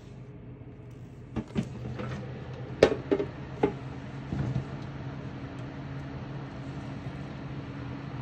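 A steady low machine hum, with a handful of light knocks and taps in the first half as iced cookies are handled and set down on the table.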